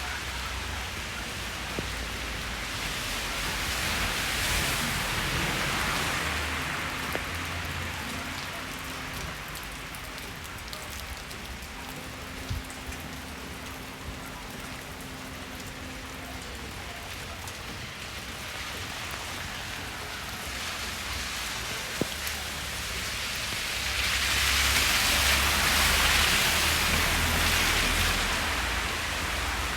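Wet-street ambience: a steady hiss of water on the road and pavement, swelling twice, about four seconds in and again near the end, the second time with a low rumble, like a vehicle passing on wet asphalt.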